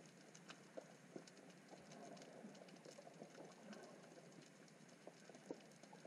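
Near silence: faint underwater ambience with scattered small clicks and crackles.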